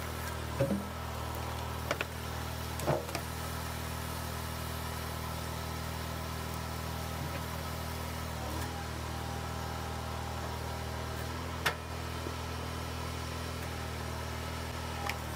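A machine's engine running steadily, with a few short knocks and clicks from the work about half a second, two, three, twelve and fifteen seconds in.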